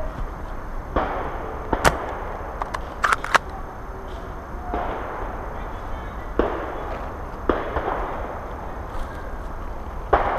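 Airsoft gunfire: a few sharp cracks, the loudest about two seconds in and a quick cluster of three about a second later, between several sudden stretches of noise.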